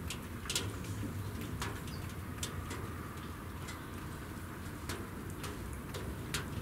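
Outdoor ambience of scattered, irregular light ticks and clicks over a steady low hum, with a faint short bird chirp about two seconds in.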